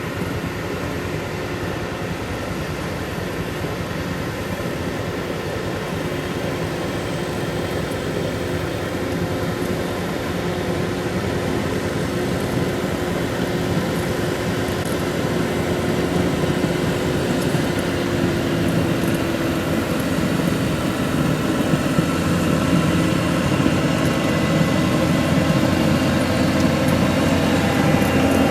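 Skid steer engine running steadily as it drags a toothed leveling attachment over the ground, growing gradually louder.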